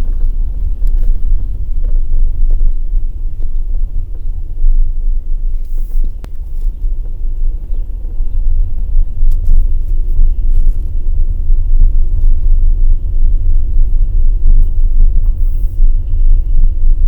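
Car on the move, heard from inside: a steady, heavy low road rumble, with a few brief, faint squeaks or ticks over it.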